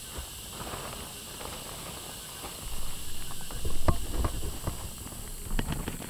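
Whitetail deer running off through grass and brush after being hit by an arrow: irregular thudding hoofbeats and rustling about two to five seconds in, with one sharp knock, over a steady hiss.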